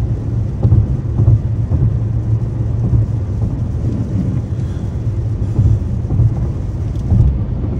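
Loud, steady low rumble of a car being driven, heard from inside.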